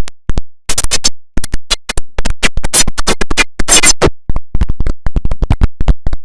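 The IBM OS/2 Warp 3 shutdown sound, electronically distorted and chopped into rapid stuttering fragments, cut on and off several times a second like record scratching.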